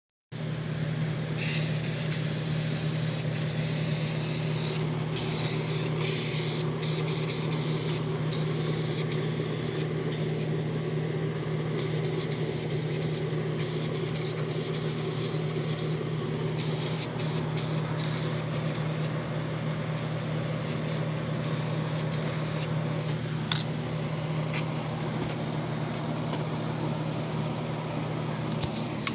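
Paint being sprayed onto a statue, hissing in on-off bursts of a second or more over a steady low hum.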